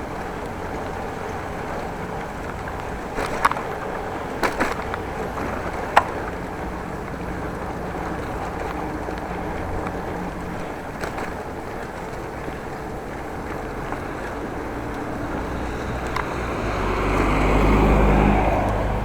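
Steady road and wind noise from a bicycle ride in traffic, broken by a few sharp clicks. Near the end a motor vehicle passes close, its rumble swelling to the loudest point and then easing off.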